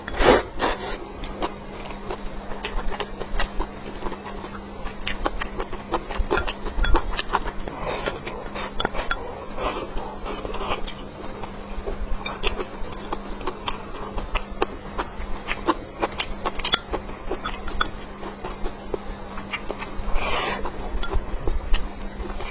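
Close-miked eating sounds: irregular wet chewing, smacking and crunching clicks, with a faint steady hum underneath.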